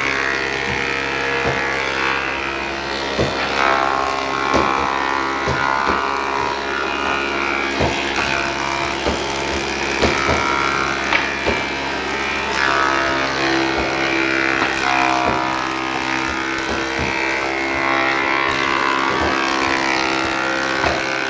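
Background music in an Indian style, a wavering string melody over a steady drone, with sharp knocks about every second.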